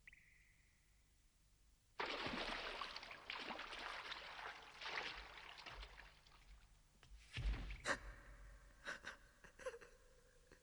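Animated-film sound effects: a harsh rushing hiss bursts in about two seconds in and runs for several seconds, then a heavy low thud, followed by a few sharp clicks.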